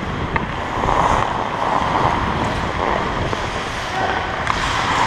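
Hockey skates scraping and carving on the ice as the wearer skates, with air rushing over a helmet-mounted microphone. A few sharp clicks, likely sticks or the puck, cut through the steady noise.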